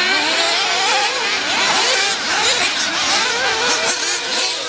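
Several 1/8-scale nitro RC buggies' small two-stroke glow engines revving together, their high buzzing pitches rising and falling over each other as the cars accelerate and brake around the track.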